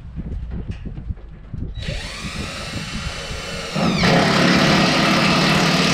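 Cordless drill driving a screw into a metal roofing panel. The motor whines up about two seconds in, then runs louder and heavier near the end.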